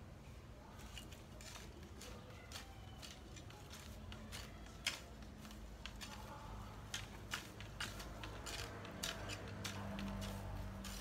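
A long-handled garden tool raking and scraping through grass and soil: irregular scratches and clicks, growing denser about halfway through.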